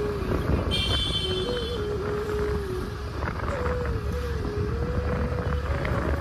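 Small vehicle riding through street traffic: a steady rumble of engine and road, with a mid-pitched tone that steps up and down in pitch. A brief high beep sounds about a second in.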